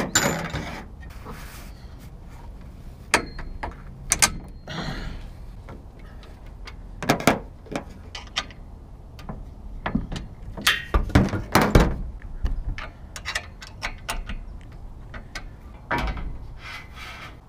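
Irregular knocks and thunks, with a few longer scrapes, from aluminum solar-panel framing and wood blocks being handled on a box-truck roof. The loudest knocks come in a cluster about eleven to twelve seconds in.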